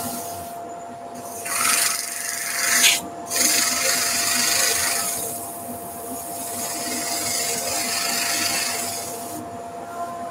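Hand-held rotary sander with a 240-grit disc hissing against a sycamore platter spinning on a wood lathe. The abrasive hiss swells and eases as the sander is worked across the face, then stops shortly before the end. A steady high hum runs underneath.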